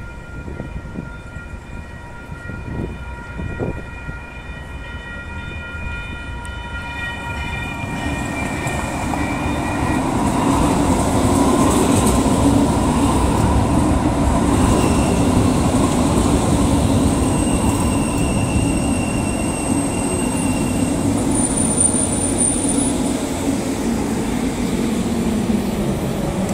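Light rail train running, its rumble building from about eight seconds in and staying loud. Before that, a steady high-pitched tone holds for several seconds over a low background noise.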